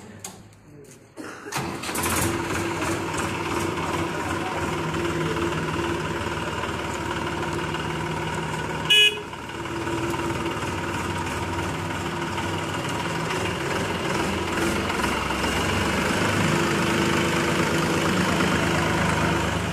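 Massey Ferguson 245 DI tractor's three-cylinder diesel engine starting about a second and a half in and then running steadily, with one short horn toot about halfway through.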